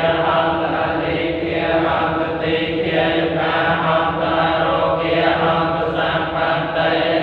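A group of voices chanting Buddhist Pali verses together in a steady, sustained unison recitation.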